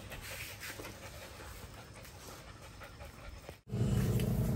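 A dog panting in short, quick breaths. Near the end the sound cuts off abruptly and a louder, steady low hum begins.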